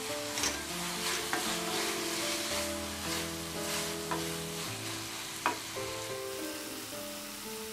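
Wooden spatula stirring and scraping a jaggery-syrup and grated-coconut modak filling around a nonstick pan as it sizzles and cooks down on medium heat, with a few sharp knocks of the spatula against the pan, the loudest a little past halfway. Soft background music with held notes runs underneath.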